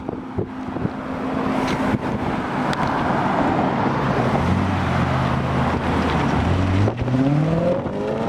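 Car engine running over a haze of wind noise: a steady engine note sets in about halfway through, then about seven seconds in the revs climb as the car accelerates.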